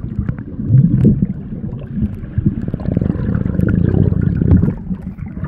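Muffled water noise and bubbling, heard underwater through the camera, stirred up by a swimmer diving past in a cloud of air bubbles. Small clicks and knocks run throughout, and it swells louder in the middle.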